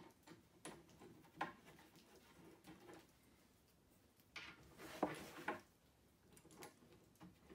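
Faint, scattered clicks and light taps of metal cabinet hinges and small screws being handled and set into a cabinet door, a few of them close together about four to five and a half seconds in.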